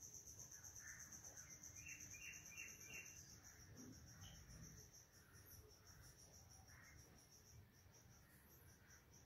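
Near silence, with a faint, high, rapidly pulsing trill like an insect's that breaks up and fades in the last few seconds. Four quick chirps sound about two seconds in.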